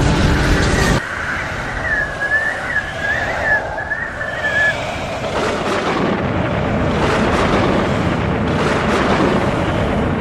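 Strong tornado wind blowing as a loud, rough, steady noise. A high wavering whistle rides on it for a few seconds near the start.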